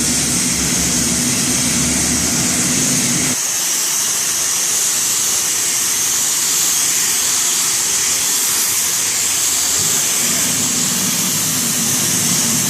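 Hot-water pressure washer spraying: a loud, steady hiss of the high-pressure jet, over the machine's low hum, which drops out about a third of the way in and comes back near the end.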